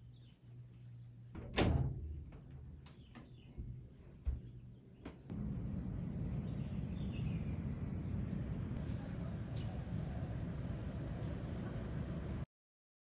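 A few sharp knocks and clunks, the loudest about a second and a half in. After a cut about five seconds in comes steady ambient noise with a high, even tone like insect song, which stops abruptly near the end.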